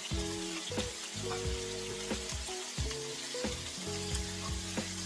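Diced onions, sweet peppers and carrots sizzling as they sauté in hot oil in a cast iron skillet, with a steady hiss. Soft background music with held notes plays alongside.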